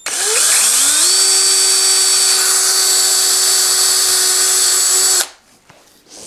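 Electric hand drill boring an eighth-inch hole through a wooden bench dog: the motor whines up to speed over about a second, runs steadily for about four seconds, then stops suddenly.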